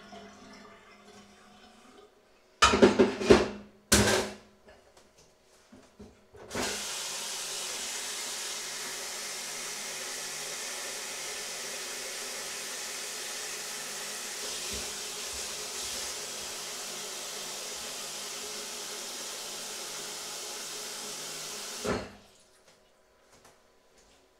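A few loud clattering knocks from dishes being handled at the sink. Then a kitchen tap runs steadily into the sink for about fifteen seconds and is shut off abruptly.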